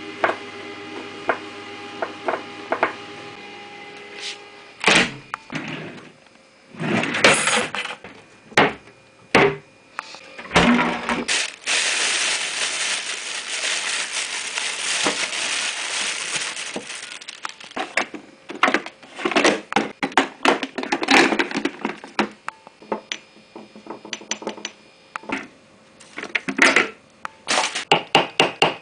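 Household objects being knocked, struck and handled: irregular sharp knocks and clicks, over a steady hum with a few held tones for the first few seconds, and a loud rushing noise from about twelve to seventeen seconds in.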